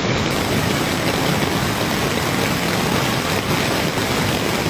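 Creek in full flood rushing past a bridge: a steady, loud wash of turbulent floodwater with a deep low rumble underneath.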